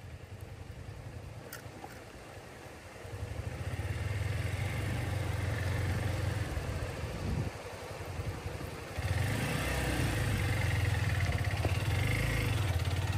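Vehicle engine running while driving on a rough dirt road. It gets louder about three seconds in, eases off briefly past the middle, and picks up again about nine seconds in.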